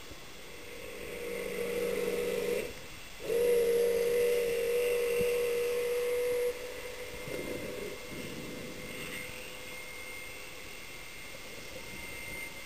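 Electric motor and propeller of a radio-controlled model submarine whining underwater, a steady tone. It swells up, cuts out briefly about three seconds in, comes back louder and steadier, then drops to a faint hum after about six and a half seconds.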